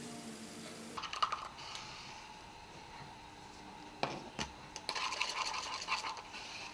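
Plastic medicine syringes and a small plastic cup handled on a kitchen countertop, making small clicks and clatters. There are a few sharp taps about a second in and again around four seconds, and a quick run of light clicks near the end.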